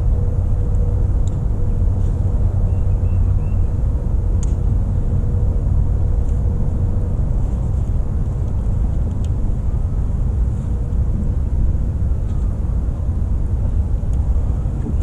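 Wind buffeting the microphone: a loud, steady low rumble, with a faint hum that fades out about halfway through and a few light clicks.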